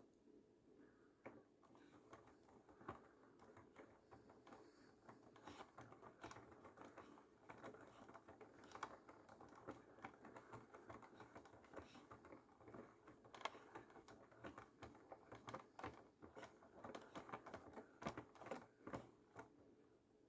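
Faint, irregular light clicking and tapping, growing denser and sharper in the second half.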